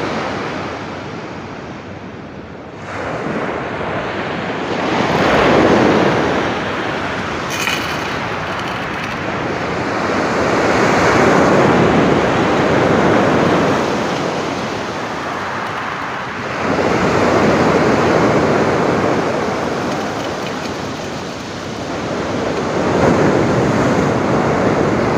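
Sea surf breaking and washing up the beach, swelling loud and dying away four times, about every six seconds.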